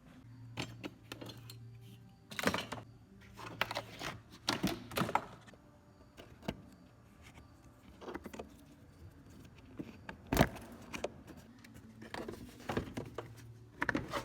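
Scattered metallic clinks, clicks and knocks of hand tools and plastic trim as windshield wiper arms and the plastic cowl panel are taken off, with one sharp knock about ten seconds in.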